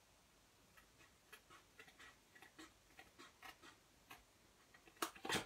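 Scissors snipping into cardstock in short cuts: a run of faint, irregular clicks a few times a second, with two louder clicks near the end.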